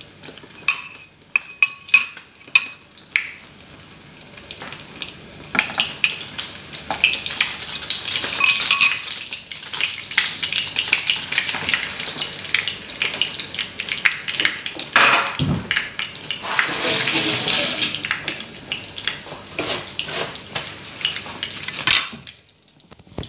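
Fork and dishes clinking for the first few seconds. Then, from about five seconds in, a steady crackling sizzle of egg-dipped bread frying in a pan, with the odd clatter of a utensil, dropping away near the end.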